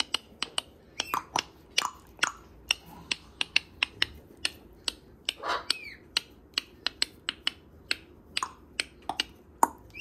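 A quick, irregular series of sharp clicks, two or three a second, with a short falling whistle about halfway through.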